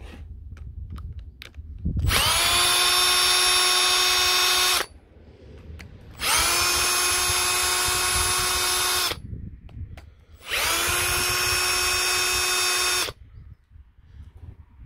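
Electric drill-driver backing out the screws from a power tool's plastic housing: its motor whines in three separate runs of about three seconds each, each rising in pitch as it spins up and then holding steady, with small clicks of handling between runs.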